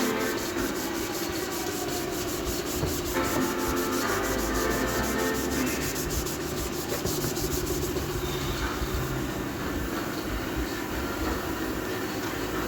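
Wooden stand parts being sanded: a continuous scratchy rubbing over a steady hum, with fast, regular strokes for most of the first two-thirds.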